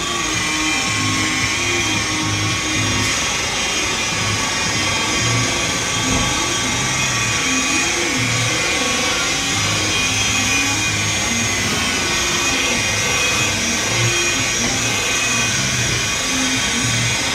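DeWalt rotary polisher with a wool pad running steadily while it buffs polishing compound on a pickup's plastic headlight lens; its motor whine holds one steady pitch. Music plays underneath.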